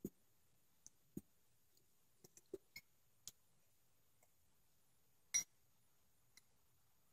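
Miniature metal fork and knife clicking and tapping against a small plate while cutting food: scattered light clicks, the loudest about five seconds in.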